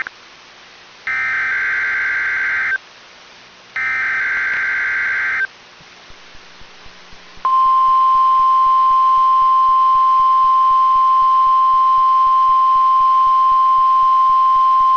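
NOAA Weather Radio warning alarm test heard over a radio: two bursts of buzzing SAME data header tones, each about a second and a half long. About halfway through, a single steady 1050 Hz warning alarm tone starts and holds.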